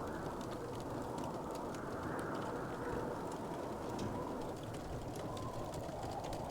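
Wood fire crackling, with many small, irregular pops and ticks over a steady, low rushing ambience.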